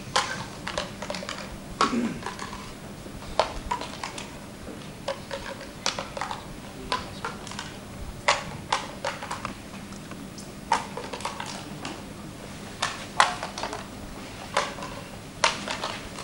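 Irregular sharp clicks and taps, coming unevenly several times a second with some louder knocks among them.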